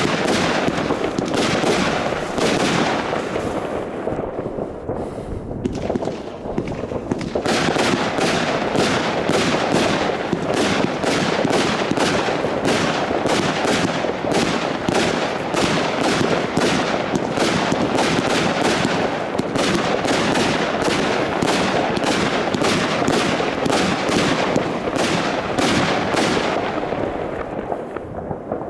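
Consumer firework batteries (cakes) firing a rapid, near-continuous run of shots and bangs, about three a second. The firing thins out briefly a few seconds in, then picks up again and thins near the end.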